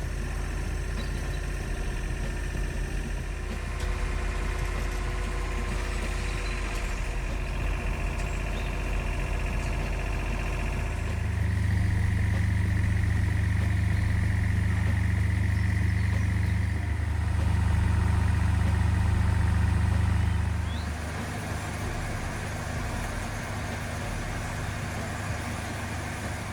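A large engine running steadily. It grows louder about halfway through, holds for about ten seconds, then drops back.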